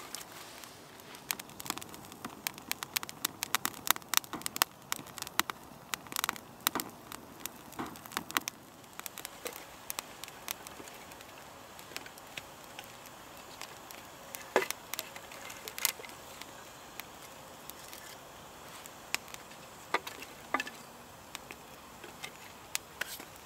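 Small wood-kindling campfire crackling and popping. The sharp pops come thick and fast for the first several seconds, then more sparsely.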